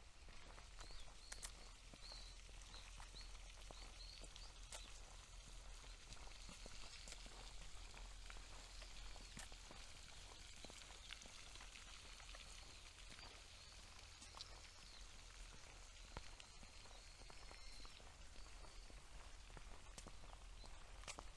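Near-silent ambience with faint, repeated short high chirps, like small birds, and scattered soft clicks.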